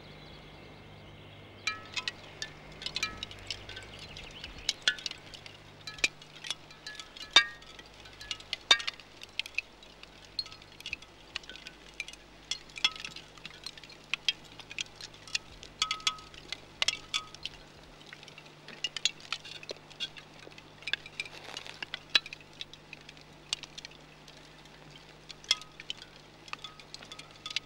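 Irregular tinkling clinks of hard pieces knocking together and ringing like a wind chime, sometimes several a second, with a few pitches that recur. They begin about two seconds in, over a faint steady low hum.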